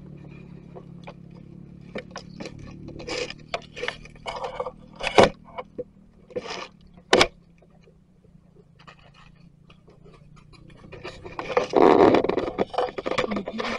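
Close scraping, rustling and clicking among dry leaf litter, with two sharp knocks about five and seven seconds in and a louder burst of rustling and knocks near the end, made by macaques feeding and moving beside the ground-level camera.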